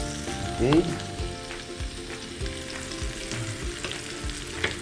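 Broccoli and carrot strips sizzling in oil in a frying pan, a steady hiss, with one sharp tap near the end.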